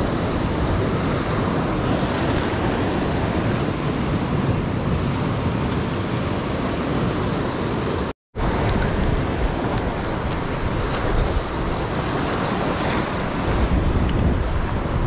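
Ocean surf surging and breaking against a rock ledge: a steady, loud wash of white water, cut off for a moment about eight seconds in.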